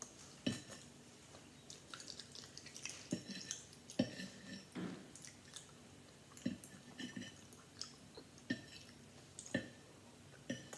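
Eating eggs with cheese close to the microphone: wet chewing and mouth noises mixed with irregular sharp clicks of a fork on a plate, the loudest about four seconds in.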